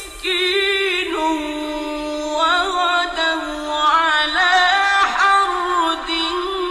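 A man's voice reciting the Quran in the melodic mujawwad style, holding long drawn-out notes and ornamenting them with wavering turns of pitch, in an old radio recording.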